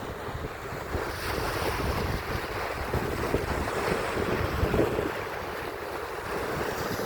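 Sea waves washing onto the beach, with wind rumbling on the microphone.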